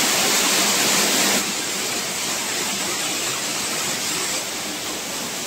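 Waterfall rushing steadily onto rock, a continuous hiss that drops a little in level about a second and a half in.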